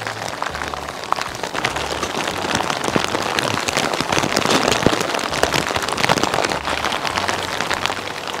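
Heavy, steady rain of a downpour, countless drops pattering densely on the grass and the wet metal body of a truck camper.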